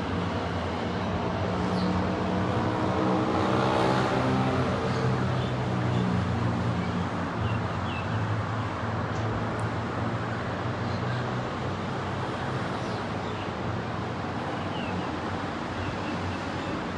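Steady outdoor traffic noise with a vehicle's pitched hum and whine that swells to a peak about four seconds in and then slowly fades. A few short bird chirps come through now and then.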